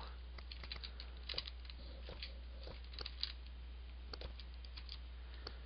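Faint computer keyboard typing: a few scattered, irregular key clicks over a steady low hum.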